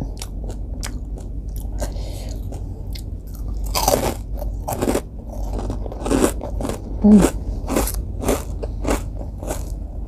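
Close-miked crunching and chewing of a fried rengginang rice cracker: many crisp bites and crunches in an uneven rhythm, louder from about four seconds in.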